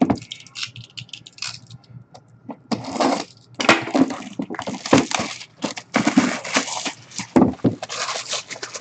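Plastic shrink wrap being torn off a sealed trading-card box and crumpled, a dense irregular crinkling and crackling. A few light ticks and scratches come first, and the crackling starts about three seconds in.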